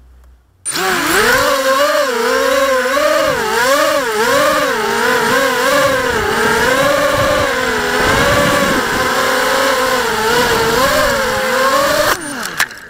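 Small quadcopter drone's electric motors and propellers whining loudly, starting suddenly as it lifts off, the pitch wavering up and down with the throttle, then spinning down with a falling pitch near the end.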